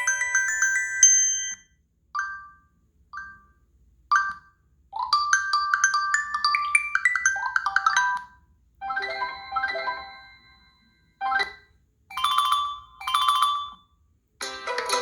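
Preloaded ringtones on a Google Pixel 3a playing in turn: the end of one melody, then three short blips about a second apart, a longer phrase of stepping notes, a few more short phrases, and a new, fuller tune starting near the end.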